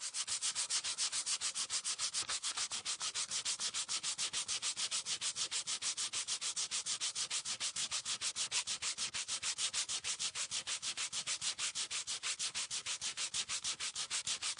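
Fast, even rubbing strokes like sandpaper on a surface, about seven a second, starting suddenly and running on at a constant pace.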